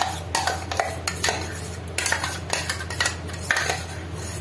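Metal spoon knocking and scraping against a bowl and a cooking pan as mango pulp is scooped into hot milk: a run of irregular clinks over a low steady hum.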